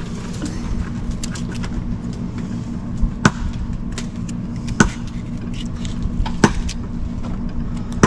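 A steady low engine-like hum, with a few sharp clicks or knocks, about three, spaced a second or two apart.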